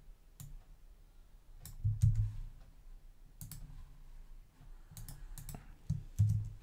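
Scattered computer mouse clicks and keyboard keypresses, with a couple of louder dull low thumps, one about two seconds in and one near the end.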